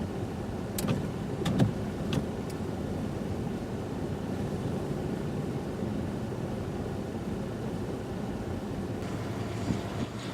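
Car running on the road, heard from inside the cabin as a steady low rumble, with a few short clicks in the first couple of seconds.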